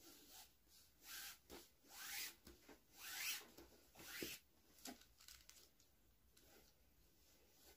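Macrame cord sliding through a knot as it is pulled tight: several short rasping zips of cord rubbing on cord, some rising in pitch.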